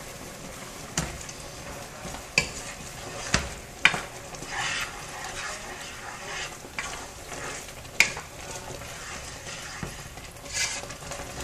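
Wooden spoon stirring a thick tomatillo sauce in a pot on the stove, with the sauce sizzling and scattered sharp knocks of the spoon against the pot, the loudest about eight seconds in.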